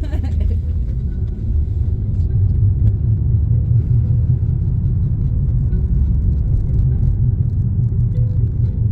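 Car cabin noise while driving: a steady low rumble of road and engine, growing a little louder about a second and a half in.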